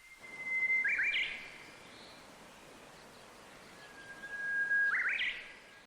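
Two bird calls, each a held whistle ending in a few quick rising notes, about four seconds apart, over a steady background hiss.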